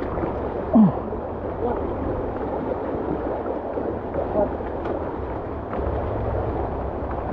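Honda CRF150 single-cylinder four-stroke trail bike running at low revs as it wades through a muddy, fast-flowing stream, with water churning and splashing around the wheels. A short sound drops quickly in pitch about a second in.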